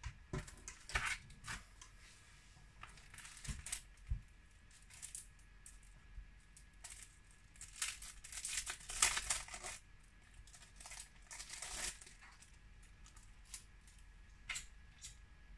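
Plastic film and packaging crinkling and rustling in irregular spurts while a tempered-glass screen protector is handled, with a few light knocks in the first few seconds and the busiest crinkling about eight to ten seconds in.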